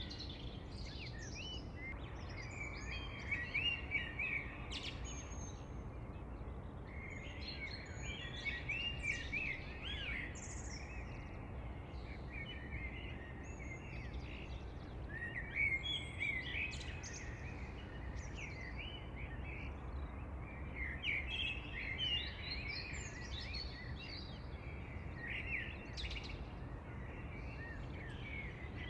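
Several birds chirping and singing in short, overlapping phrases that come in clusters every few seconds, over a steady low background rumble.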